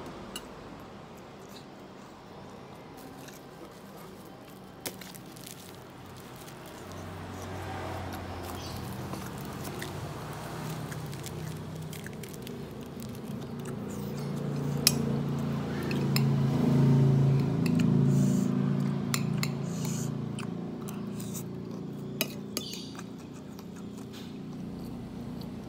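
Metal spoon clinking and scraping on a plate as rice is scooped and eaten, with a few sharp clinks. A low hum swells through the middle and fades again.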